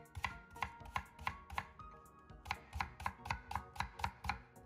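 Chef's knife thinly slicing a leek on a bamboo cutting board: quick, even knocks of the blade through the leek onto the board, about three a second, with a short pause around the middle.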